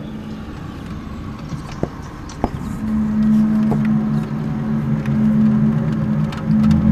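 Low, steady droning hum of two held tones that swells louder about three seconds in, the unexplained recurring 'strange sound' of the kind people have recorded outdoors.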